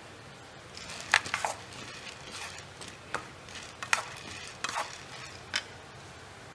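Wooden spatula scraping and stirring urad dal dry-roasting in a non-stick pan: a string of short scrapes and rattles of the grains, the loudest about a second in and near four seconds.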